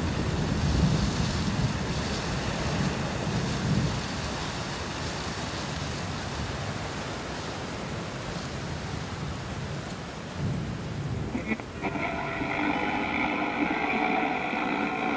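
Rain falling steadily with low rolling rumbles of thunder. About twelve seconds in, a steady chord of several held tones starts over the rain.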